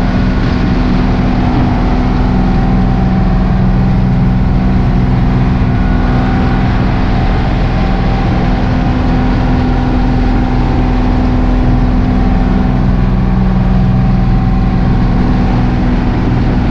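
Outrigger fishing boat's engine running steadily under way, a constant even drone with no change in speed.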